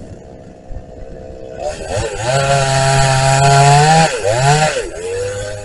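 Vintage Husqvarna two-stroke chainsaw idling, then opened up to full revs and cutting into wood for about two and a half seconds. It drops back, gives one short blip of the throttle and settles to idle near the end.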